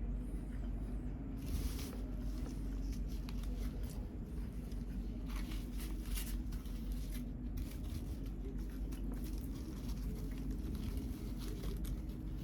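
Close-up eating and handling sounds of khao tom mat, sticky rice wrapped in banana leaf: soft crackles, rustles and small sticky clicks, busiest in the first half, over a steady low hum.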